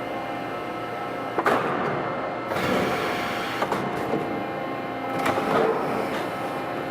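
Furnace-wrapper manufacturing machine running with a steady multi-tone hum, with sharp mechanical clicks about a second and a half and nearly four seconds in, and bursts of rushing noise around three and five and a half seconds in.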